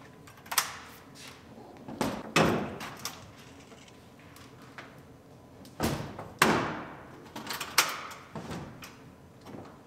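BAKFlip hard folding tonneau cover being folded up on a pickup bed, its hinged panels knocking and clunking against each other. There are several sharp knocks, the loudest about two and a half and six and a half seconds in.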